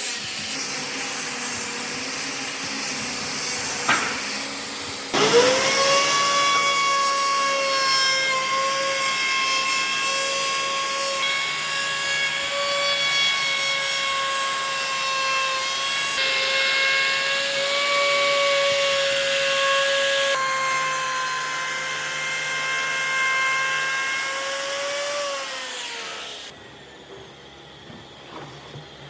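An electric woodworking power tool spins up about five seconds in and runs with a steady high whine while working wood, then winds down near the end, its pitch falling as it stops.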